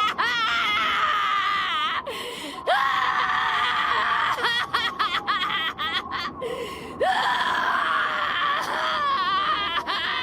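Monkey D. Luffy's Japanese anime voice screaming and wailing: long, high-pitched cries whose pitch quavers rapidly, several of them with short breaks and abrupt cuts between.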